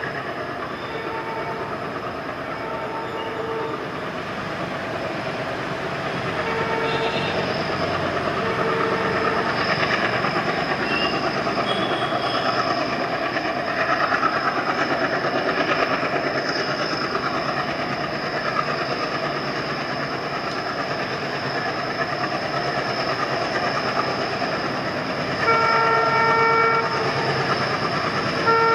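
ALCo WDM 3D diesel locomotive (16-cylinder ALCO 251 engine) with its engine chugging rhythmically as it hauls a passenger train, growing louder as it approaches. A horn sounds several short blasts in the first nine seconds and a longer blast about 25 seconds in, with another starting at the very end.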